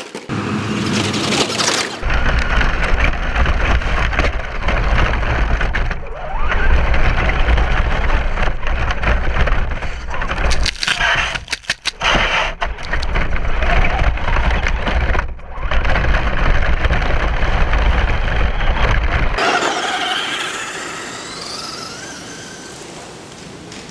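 Onboard sound from a camera riding on a Traxxas RC truck as it drives over rough grass and dirt. Heavy wind rumble and jolting noise fill it until it cuts off about 19 seconds in. After that the truck's motor is heard whining up and down in pitch from a distance.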